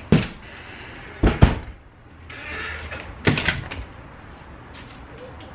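An exterior house door being opened and shut: a sharp knock just after the start, a heavy double thump about a second and a half in, then a quick cluster of latch clicks and rattles about two seconds later.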